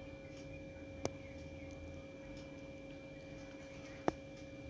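A metal spoon stirring spiced water in a metal cooking pot, knocking sharply against the pot twice, about three seconds apart, over a steady low hum.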